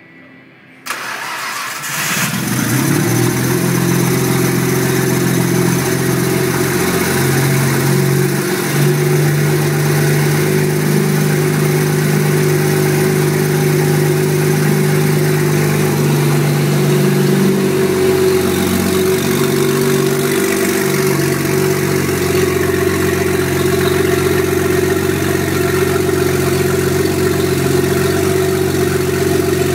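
Nissan RB26DETT twin-turbo straight-six turning over about a second in and catching a second later, then idling steadily with small shifts in pitch now and then. This is its first start on newly installed Spitronics aftermarket engine management.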